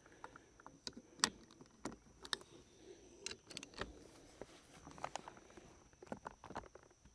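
Faint, irregular metallic clicks and clinks of a 13 mm socket wrench being worked on a shotgun's stock bolt, which is on tight.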